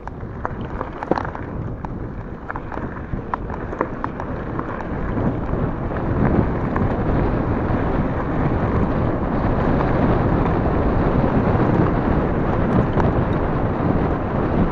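Wind rushing over the microphone and tyres rolling on a gravel track as an e-bike rides at speed, the rush growing louder over the first six seconds and then holding steady. Scattered clicks and rattles sound in the first few seconds.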